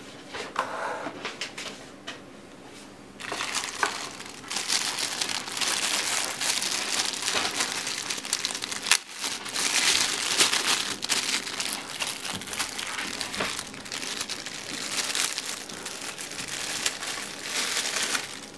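Plastic packaging crinkling and crumpling as it is handled, starting about three seconds in, with a brief pause about halfway through.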